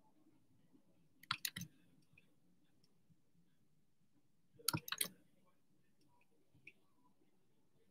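Faint clicking at a computer: a quick run of three or four clicks about a second and a half in, another run near five seconds, and a single small tick near the end.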